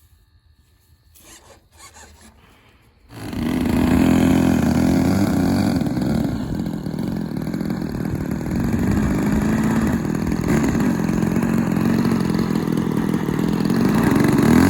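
DLE 20, a small two-stroke gasoline model-airplane engine, comes in abruptly about three seconds in and then runs steadily at a fast idle, its pitch wavering slightly.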